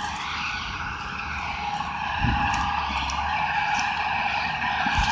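Excavator-mounted harvester processor working, its engine and hydraulics running with a steady whine, slightly louder from about two seconds in.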